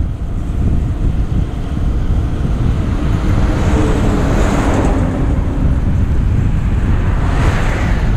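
Heavy wind buffeting on the microphone while cycling along a highway, with a truck engine swelling past about four seconds in and a car's tyre-and-engine noise rising near the end.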